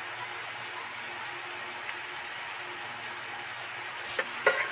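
Beaten egg batter sizzling in hot oil in a frying pan, a steady even hiss, with two short knocks near the end.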